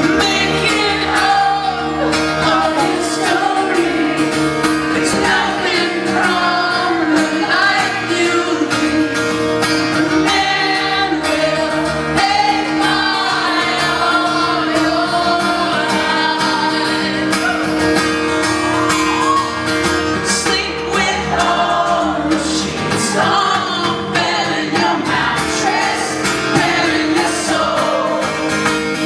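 Live acoustic guitar accompanying singing, recorded in a concert hall; the voices are sung continuously and sound like more than one singer at times.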